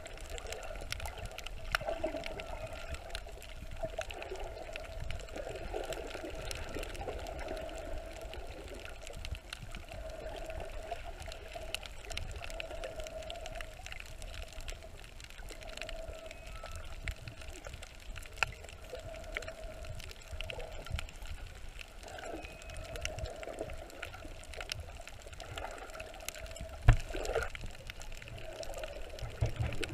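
Underwater sound picked up by a submerged camera: muffled sloshing and gurgling water with many faint scattered clicks, and one sharp knock near the end.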